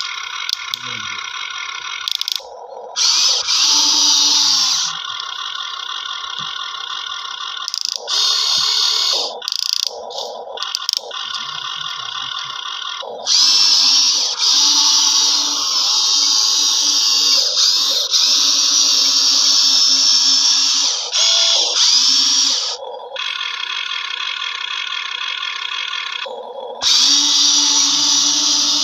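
Small electric motors and gearboxes of radio-controlled toy construction machines whining, switching on and off every few seconds as the controls are worked, with several longer, louder runs.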